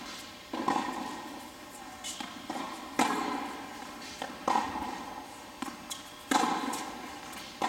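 A tennis rally on an indoor hard court: sharp racket strikes and ball bounces about every one and a half seconds, with smaller knocks between them, each echoing in the large hall.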